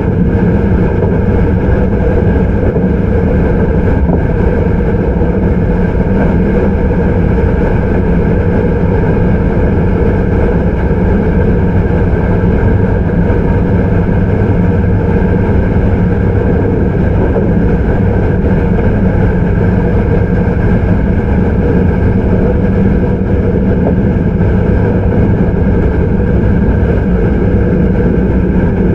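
Hankyu 9300 series electric train with Toyo IGBT-VVVF traction equipment running at a steady speed, heard from inside the car: an even, constant rumble of wheels and traction gear on the rails, with no rise or fall in pitch.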